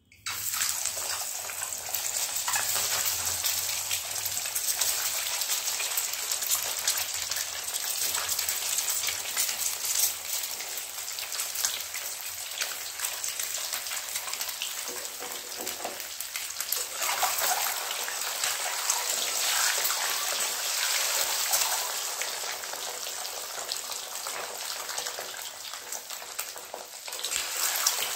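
Whole boiled eggs, coated in chilli powder and turmeric, sizzling and spattering as they fry in hot oil in a kadhai: a steady crackling hiss with scattered pops.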